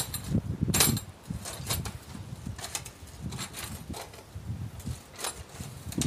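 Gusty wind buffeting the microphone in low rumbles, with a few short sharp clicks and knocks.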